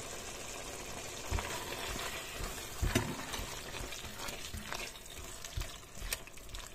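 Diced beef frying in a tomato and onion sofrito in a cast iron pot, a steady sizzle over medium heat. A few short knocks and scrapes come from the spatula stirring against the pot.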